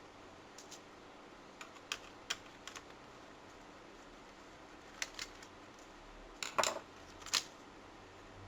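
Scattered light clicks and taps from tools and parts being handled inside an opened laptop during disassembly, with a few louder clicks near the end.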